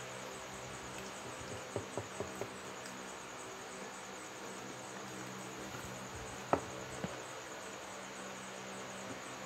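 Insects chirring steadily at a high pitch over a low steady hum, with a few soft mouth clicks and smacks of eating fried chicken about two seconds in, and a sharper click about six and a half seconds in followed by a smaller one.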